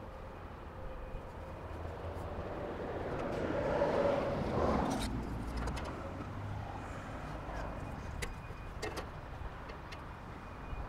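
A road vehicle passing by, its noise swelling to a peak about four seconds in and then fading. Later there are a few light clicks from a metal combination square and pencil being handled against sheet-metal capping.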